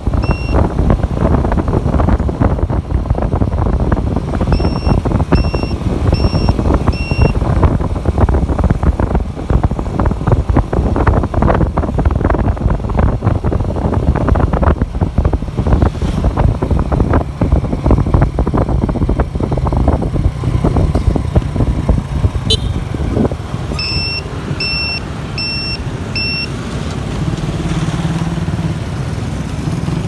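Riding a motorcycle in traffic: rough wind and road rush over the engine, easing off about three-quarters of the way through to a quieter, steadier engine hum as the bike slows. Runs of short, high electronic beeps, about two a second, come at the start, a few seconds in, and again near the end.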